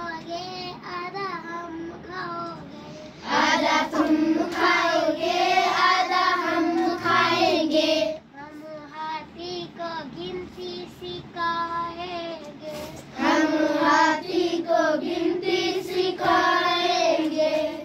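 A young girl singing a Hindi counting poem about teaching an elephant to count, louder in two stretches, from about three seconds in and again from about thirteen seconds in.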